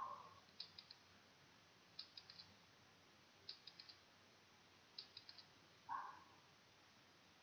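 Quiz countdown-timer ticking sound effect: faint groups of four quick high-pitched ticks, repeating about every one and a half seconds, with a brief softer sound at the start and again about six seconds in.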